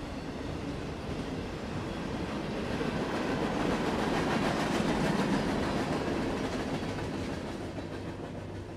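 Freight cars of a Norfolk Southern train rolling past, steel wheels clattering on the rails. The sound swells about halfway through, then fades as the last cars go by.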